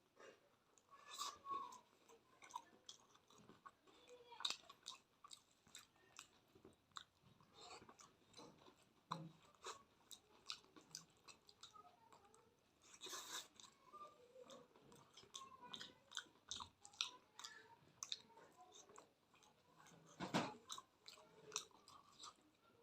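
A person chewing mouthfuls of malpua, a sweet fried pancake, close to the microphone: irregular mouth clicks and smacks, with a few louder bites about 1, 4.5, 13 and 20 seconds in.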